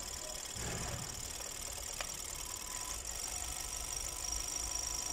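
2015 Hyundai Sonata's GDI four-cylinder engine idling unevenly with a misfire, the sign of a dead number 4 cylinder that has no compression. A single sharp click about two seconds in.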